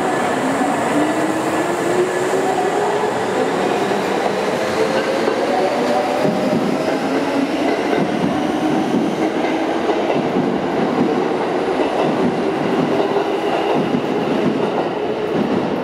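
Kintetsu 8000 series and 1233 series electric trains departing: the traction motors whine, rising steadily in pitch as the train gathers speed, over the continuous rumble of the wheels on the rails.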